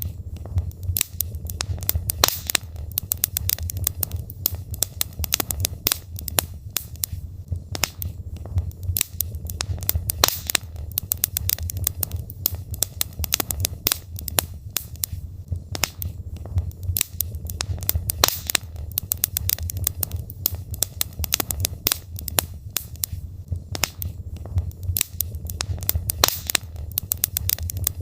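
Wood fire of burning logs crackling: dense, irregular sharp pops and snaps over a steady low rumble.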